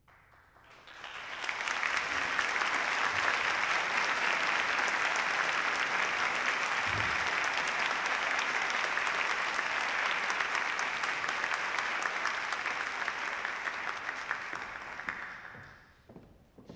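Audience applauding: the clapping swells up over the first two seconds, holds steady, then dies away about a second before the end.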